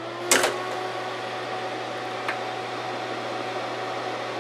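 HP 8672A signal generator just switched on: its hum rises in pitch as it comes up to speed and levels off into a steady drone, like a cooling fan spinning up. A loud sharp click comes about a third of a second in, and a faint click a little after two seconds.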